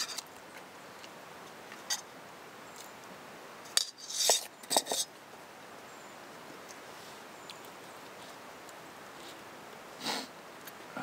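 Metal spoon and small metal camping pot clinking, then a few clanks about four seconds in as the pot is set down on a stone; a short scrape near the end as a knife cuts steak on a wooden board.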